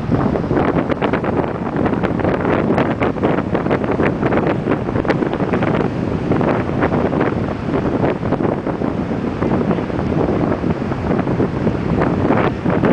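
Strong wind buffeting the microphone with steady rumble and crackle, over the wash of ocean surf breaking on the beach.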